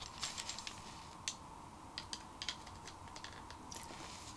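Light, irregular clicks and taps of hands handling an opened Sony WM-EX610 cassette Walkman and pushing a headphone plug into its jack.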